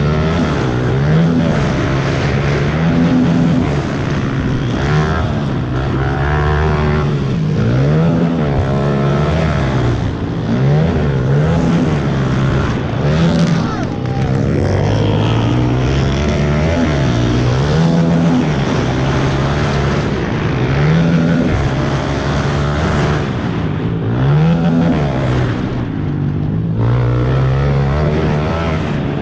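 Pit bike engines racing, each revving up and dropping back as it shifts gears, over and over, with more than one bike heard at once at times.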